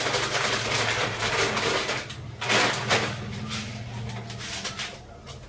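Cooking at a gas stove: Maggi noodles in a wok being stirred, with scraping and knocks and one loud clatter about halfway, over a steady low hum.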